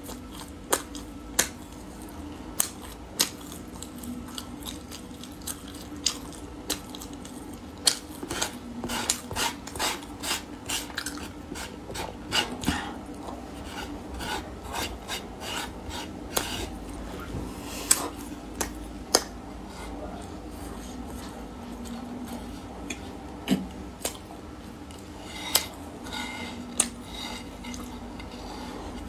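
Fingers dabbing and rubbing pastry crumbs on a bamboo board, with many sharp, irregular clicks and taps, along with mouth sounds as the crumbs are eaten.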